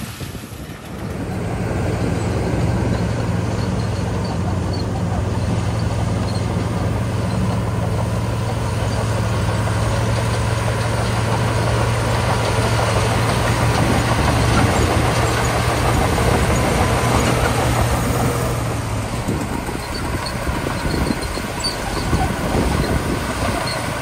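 Komatsu crawler bulldozer's diesel engine running steadily under load as the blade pushes gravel. Its steady hum drops away about three-quarters of the way through, leaving a rougher engine sound with light clinks.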